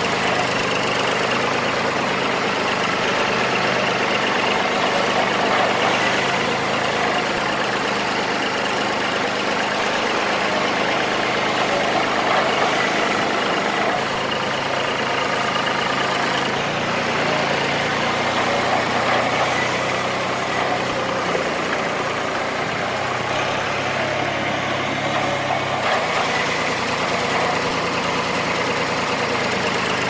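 Tractor engine running steadily at idle, its low hum shifting slightly in pitch every few seconds.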